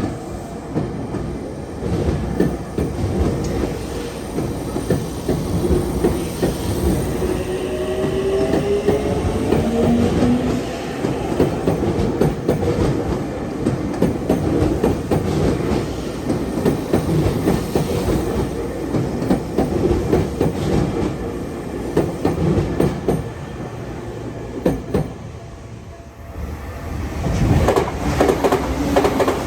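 Tokyu Meguro Line electric commuter train running past close by, its wheels clicking over the rail joints. A whine rises slowly in pitch about six to eleven seconds in, and the sound dips near the end before getting loud again.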